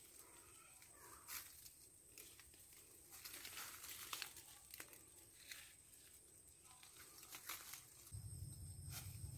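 Faint rustling and crinkling of leaves and twigs as branches are handled and cut, with scattered small snaps. A low rumble comes in near the end.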